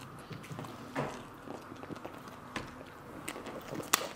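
Faint eating and handling sounds: chewing and food being handled, with scattered small clicks, the sharpest one near the end.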